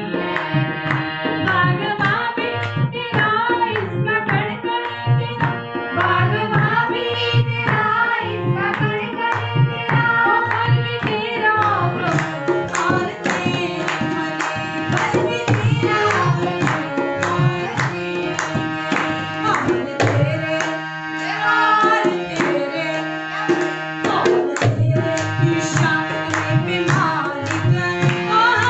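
A Hindi bhajan sung by a woman to her own harmonium accompaniment. A dholak barrel drum plays a steady rhythm under the voice and the held harmonium chords. The drum drops out for a moment about two-thirds of the way through, then comes back in.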